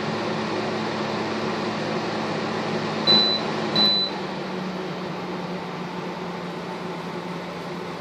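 Sunpentown WA-1211S window air conditioner running with a steady whooshing hum. About three seconds in its control panel beeps twice as buttons are pressed, and the running sound then settles a little quieter and lower.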